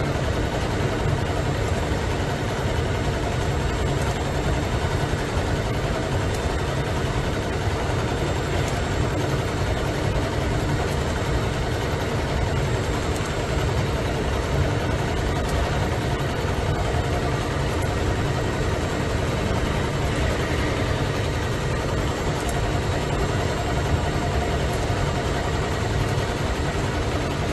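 Richpeace CNC heating-wire sewing machine running, its head stitching a heating wire down in a zigzag: steady machine noise with a strong low hum.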